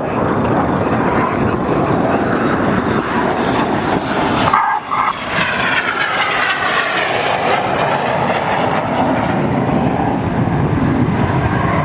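Jet noise from the Red Arrows' BAE Hawk T1 jets as the synchro pair fly tight 6G turns, loud and steady. It dips briefly about four and a half seconds in, then the tone sweeps as a jet passes.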